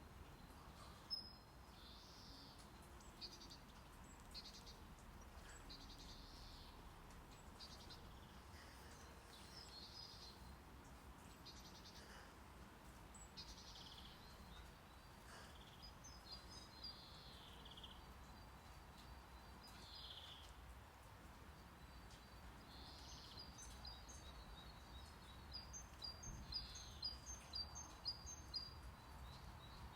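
Faint birdsong, scattered chirps with a quick run of repeated chirps near the end, over a steady low rumble of brown noise.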